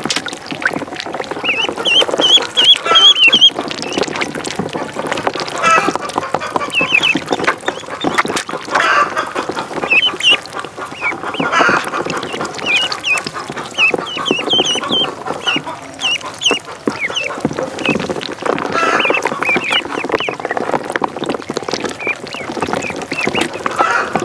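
Ducklings peeping in clusters of short, high chirps, with lower fowl calls among them.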